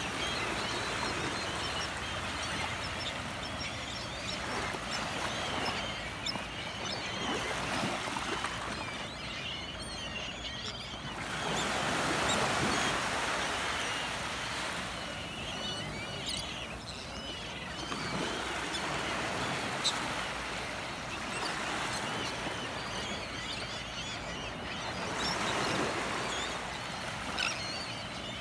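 Gentle surf washing onto the beach, swelling and easing every few seconds, under many seabirds calling in short, high cries over a feeding flock.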